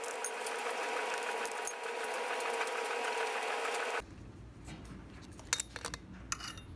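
A steady mechanical whirring with a fast rattle that stops abruptly about four seconds in. After it come a few light metallic clicks of a wrench and pushrod tubes being handled on the engine.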